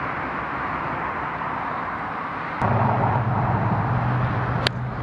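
A golf club striking the ball on a tee shot: one sharp click near the end. Under it, a steady low hum sets in suddenly about halfway through.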